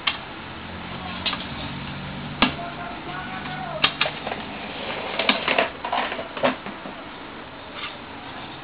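Teneth cutting plotter's motors whining in short runs that change in pitch, with a steady low hum, under scattered sharp clicks. About five seconds in comes a cluster of clicks and rattles as the printed sticker sheet is handled in the machine.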